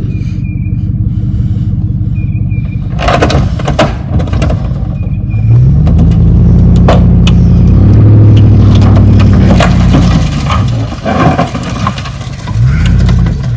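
A truck engine pulling hard, revving up and back down twice, while a stripped vehicle body is dragged behind it with loud crunching and cracking of metal and glass.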